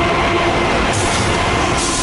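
BNSF diesel freight locomotives passing close by at speed: a loud, steady rumble and rush of wheels on rail.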